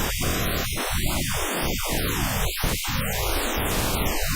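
Pink noise, a steady full-range hiss, with the words 'köszönöm' and 'thank you' drawn into its spectrogram as gaps by spectral editing. It plays back as hiss whose tone keeps shifting, with sweeping hollows as the sloping letter strokes pass through it.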